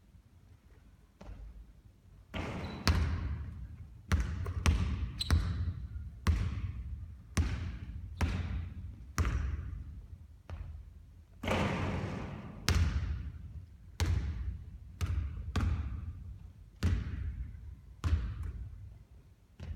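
A basketball striking the court, rim or backboard over and over during three-point shooting practice, sharp hits about one or two a second, each trailing off in a short echo.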